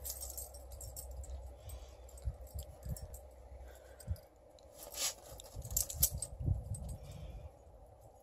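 A dog's metal collar tags jingling in short bursts as it digs and noses in snow.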